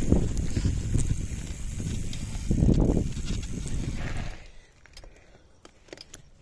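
Wind noise on the microphone and tyre rumble from a mountain bike riding a gravel dirt track. It drops off sharply about four seconds in, leaving only a few faint clicks and ticks.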